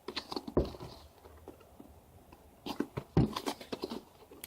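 Hands fumbling with a headphone retail box while trying to open it: scattered taps, clicks and scrapes of the packaging, bunched near the start and again about three seconds in.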